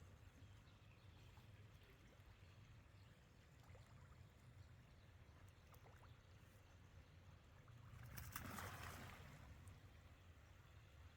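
Near silence: a faint, steady low rumble, with one brief soft rush of noise about eight seconds in.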